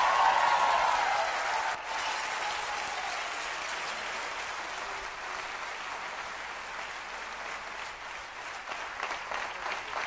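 A large seated audience applauding, loudest at the start and easing off after about two seconds into steady applause, with separate claps standing out near the end.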